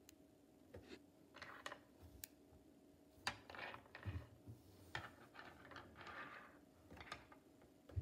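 Small magnetic balls clicking and rattling against each other as a structure built from them is squeezed and handled, with short rasping scrapes between quiet moments. A sharp knock near the end as the structure is set down on the wooden table.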